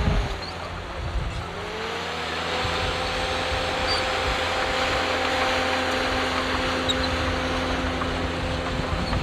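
Heavy earthmoving machine's diesel engine running under work, with a whine that dips and then climbs back about two seconds in before holding steady. A loud knock comes right at the start.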